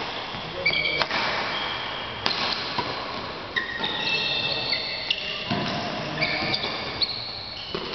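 Badminton rally: a string of sharp racket-on-shuttlecock hits about every half second to second, with short high squeaks of shoes on the court floor, echoing in a large hall.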